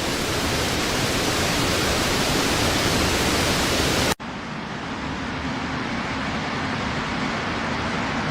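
Steady rushing water noise. It cuts off abruptly about four seconds in and gives way to a duller rush with a faint low hum.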